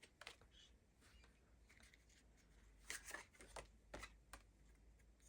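Faint rustles and soft taps of tarot cards being handled and turned over, a short cluster of them about three to four seconds in.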